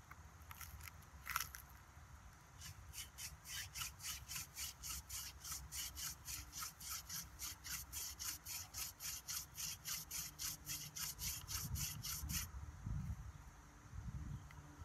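Goldenrod hand-drill spindle spun back and forth between the palms, its tip rubbing in a divot in a cedar hearth board in quick even strokes, about four a second, as the hearth is burned in for a friction fire. The rubbing starts a couple of seconds in and stops a few seconds before the end.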